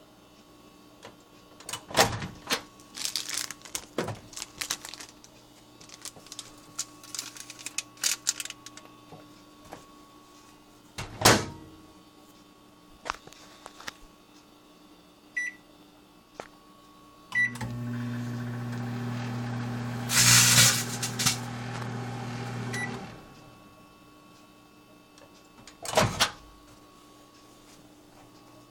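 A foil-lined chip bag crinkles and the microwave door knocks shut; then the keypad beeps twice. The microwave hums steadily for about five seconds, and partway through comes a loud crackling burst as the metallized bag shrivels and sparks. It beeps as it stops, and the door knocks open.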